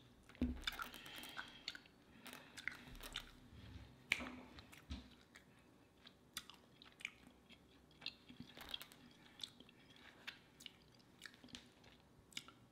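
A person chewing with the mouth close to the microphone: quiet, irregular mouth clicks and chewing sounds.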